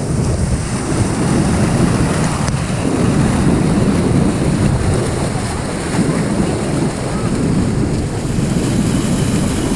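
Loud, steady rush of flowing water, close to the microphone.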